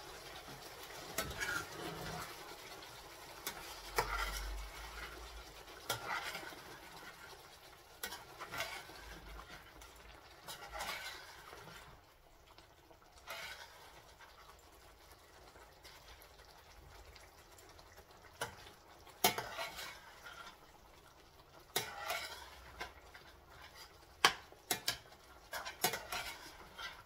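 A utensil stirring and scraping chicken in a stainless steel frying pan, with irregular clinks against the pan. The yogurt just added is being worked into the frying chicken during the bhuna stage of a karahi.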